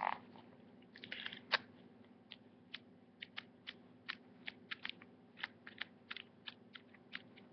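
Pages of a paper journal pad flicked past one at a time under the thumb: a soft rustle, then a faint string of light, irregular paper ticks, about two or three a second.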